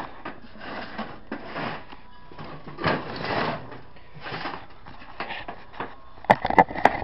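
Hand work on an ATV engine with tools and metal parts: scraping and rustling of handling, then near the end a quick, irregular run of sharp metallic clicks and clanks, the loudest sounds here.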